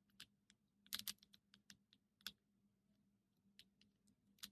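Computer keyboard keys pressed one at a time, in a handful of faint, irregular clicks while a short word is typed.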